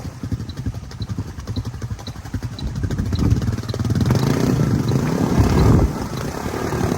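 Small Honda ATV engine running and revving, growing louder from about three seconds in, with its pitch rising and falling, then easing a little near six seconds.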